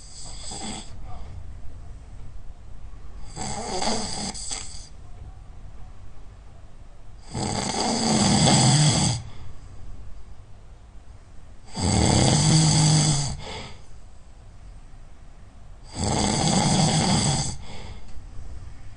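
A person snoring loudly, one snore roughly every four seconds, five in all. The last three snores are the longest and loudest.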